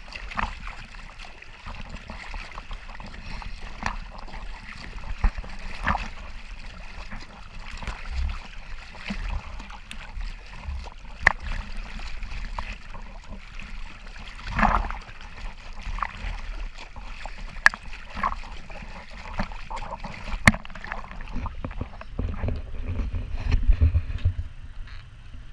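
Seawater splashing and sloshing around a camera at the surface, with sharp irregular splashes among small waves. Near the end, a low rumble comes in.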